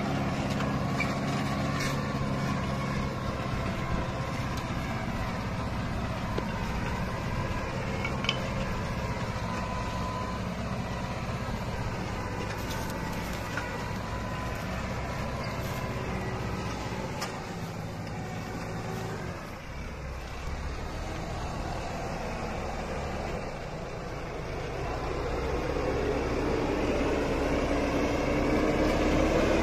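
New Holland TD590 tractor engine running steadily while pulling a plough across the field. Near the end it grows louder, its note rising slightly.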